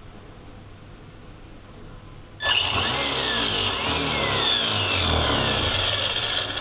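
Brushless-motor RC buggy: quiet at first, then about two and a half seconds in a sudden loud rush of motor whine and tyre noise, with the whine gliding down in pitch as it runs at speed.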